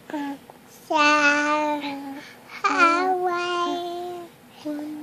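A toddler singing wordless, babbling sounds in long held notes: two notes over a second long each, the second opening with a high falling squeak, and a third starting near the end.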